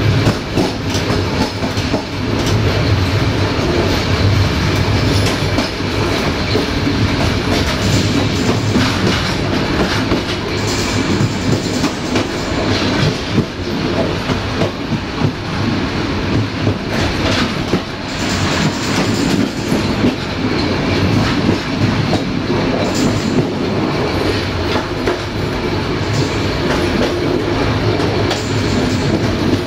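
Passenger train coaches running on jointed track: a steady rolling rumble with the wheels clicking over rail joints, and now and then a faint high squeal from the wheels.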